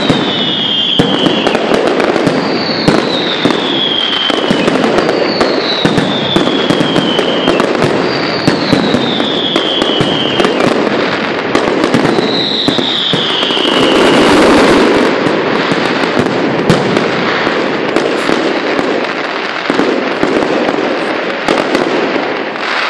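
Aerial fireworks display: a dense, continuous crackle of sharp bangs and pops, swelling loudest about two-thirds of the way through. A high whistle falling in pitch recurs five times in the first half.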